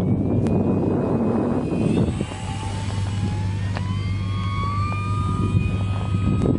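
RC model PC-6 Porter plane's motor and propeller whining in flight, the pitch climbing steadily from about two seconds in. Wind rumbles on the microphone, heaviest in the first two seconds.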